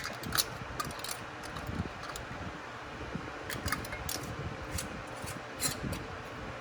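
Metal lids being put on and screwed down onto glass canning jars: scattered light clicks and scrapes, the sharpest right at the start and a cluster in the second half, over a steady fan-like hum.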